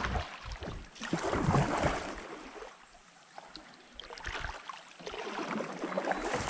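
Kayak paddle strokes in river water: the blade dips and pulls with a swishing splash every second or two, with a lull in the middle.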